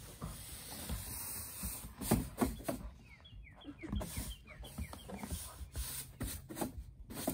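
Scrapes and knocks of a push broom's bristles on wooden deck boards as a puppy pounces at it. Midway, a bird gives a quick run of short falling chirps.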